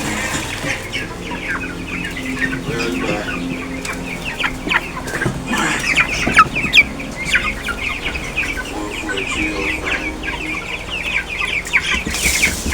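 A flock of farm chickens clucking and cheeping, many short calls overlapping continuously.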